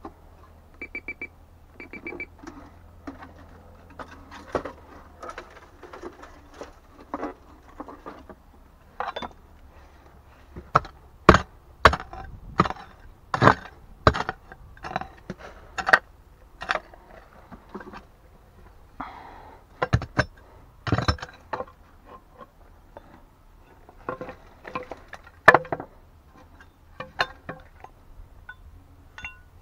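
A metal detector gives a few short high beeps, then a small pick strikes again and again into stony soil and rubble: irregular sharp blows with loose dirt and stones scraping and clinking between them.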